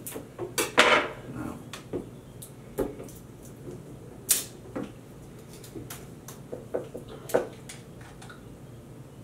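Irregular clicks, scrapes and taps of a small tool picking at the seal on the neck of a glass hot-sauce bottle, with a longer scrape about a second in and a sharp tick a little over four seconds in.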